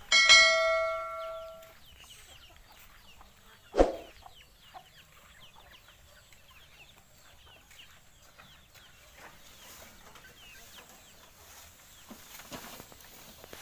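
A bright bell-like ding right at the start, ringing and dying away over about a second and a half, from a subscribe-button sound effect. After it come a single sharp knock about four seconds in and scattered faint clucks and high peeps from farmyard chickens and chicks.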